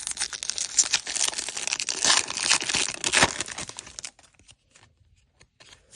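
Foil wrapper of a Topps baseball card pack being torn open and crinkled, a dense crackling for about four seconds, then only a few faint ticks.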